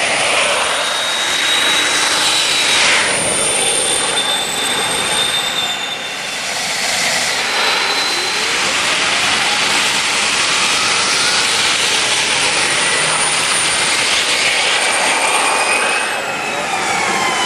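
Go-kart's jet engine running hard: a loud, steady rushing roar with a high whine on top. The whine slides down in pitch as the kart passes by, once near the start and again near the end, and glides upward in between.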